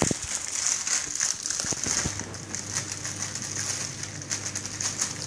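Thin plastic bag crinkling and rustling as hands pull it open and handle the frozen waffles inside, with a few sharper crackles.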